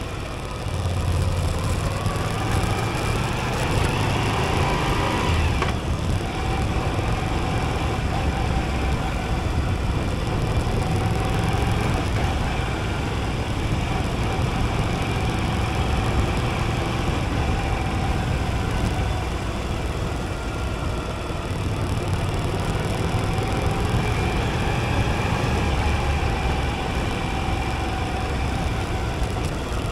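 Moto Guzzi V85TT's air-cooled V-twin running under way with wind and road noise. It climbs in pitch over the first few seconds, breaks briefly about five seconds in, then runs on steadily.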